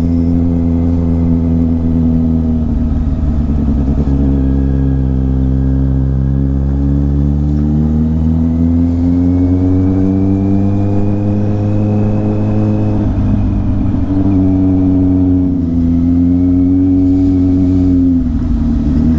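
Kawasaki Z800's inline-four engine running under way, heard from the rider's seat. Its note holds steady, climbs for several seconds, drops back abruptly about thirteen seconds in, and dips again near the end as the throttle is worked through the bends.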